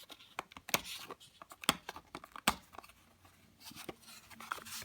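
Coin packaging being handled as a capsuled coin is worked out of its presentation box: short scrapes and rustles of card and plastic with several sharp clicks.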